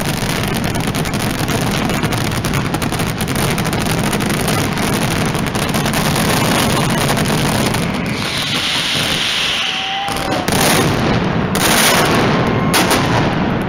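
Mascletà finale: a dense, continuous barrage of firecracker blasts that thins out about eight seconds in, leaving a few single cracks. The crowd starts to cheer near the end.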